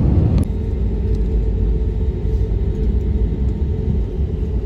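Airbus A320neo cabin noise by the wing: a loud rush of engine and air noise on approach that cuts off sharply about half a second in, replaced by a lower, steady rumble with a faint hum as the airliner rolls on the ground after landing.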